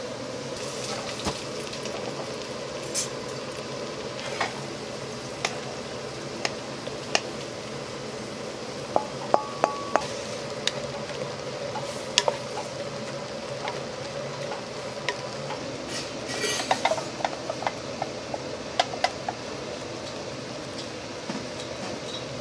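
Wooden spatula stirring and scraping browned ground meat in a metal pot, with sharp knocks of the spatula against the pot's sides scattered through, bunched in a flurry about nine seconds in and another from about sixteen seconds in. A low steady hiss runs underneath.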